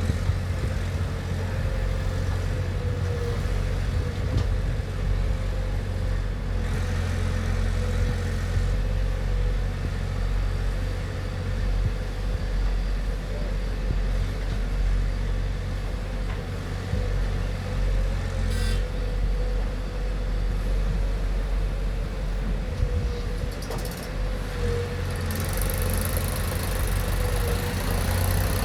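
Diesel engine of a JCB 3DX backhoe loader running steadily, with a steady whine over the engine note and one brief sharp sound about two-thirds of the way through.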